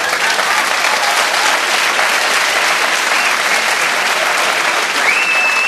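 Live audience applauding steadily, with a short high whistle from the crowd about five seconds in.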